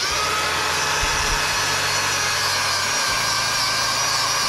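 Wire wheel on a cordless power tool running steadily against a rusty steel axle differential housing, scrubbing off rust and grime before the housing is coated.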